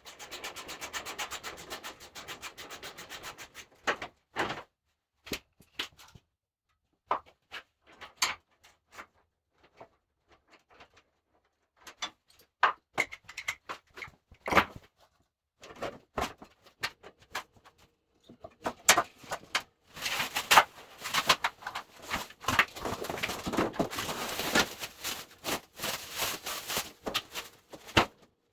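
Packaging and sawmill parts being handled during unboxing: a quick rasping run of clicks at first, then scattered knocks and clicks, then a long stretch of dense rubbing and scraping.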